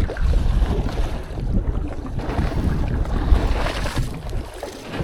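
Strong wind buffeting the microphone in uneven gusts on a small boat at sea, with water sloshing against the hull.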